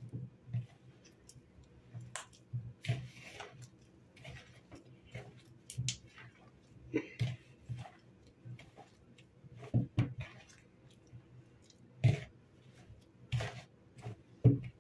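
A hand mixing soft margarine and powdered sugar in a plastic bowl: irregular squishing and clicking as the fingers squeeze the mixture, with a few louder knocks against the bowl in the second half.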